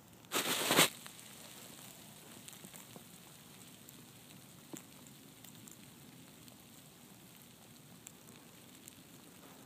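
Heavy falling snow ticking lightly and unevenly over a faint steady hiss. Under a second in there is a brief, loud rush of noise.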